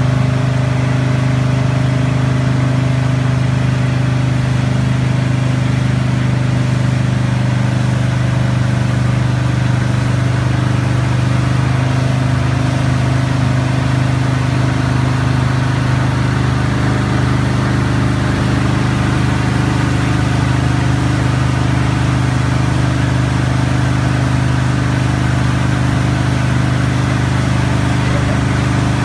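Jet boat engine running steadily at speed with a constant low hum, over the rush of water churned up in the wake.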